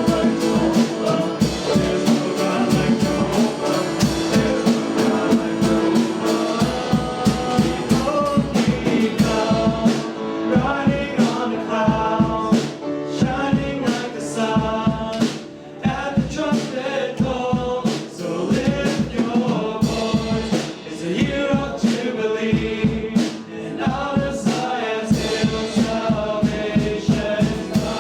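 Live worship music: voices singing a gospel-style song over a band with a drum kit keeping a steady beat.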